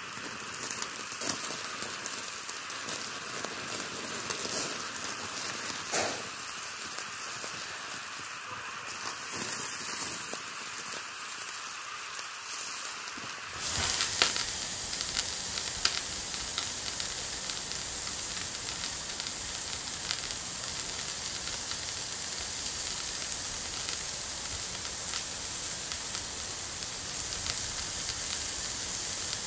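Steady crackly hiss with scattered faint clicks; about thirteen and a half seconds in it jumps to a louder, fuller, even hiss.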